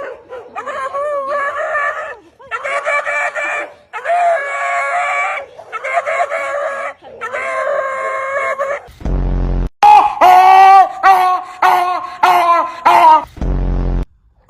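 A dog making funny drawn-out vocal calls: six pitched calls of about a second each with short gaps, then a quicker run of shorter, higher calls. Two short low buzzes cut in, one about nine seconds in and one near the end.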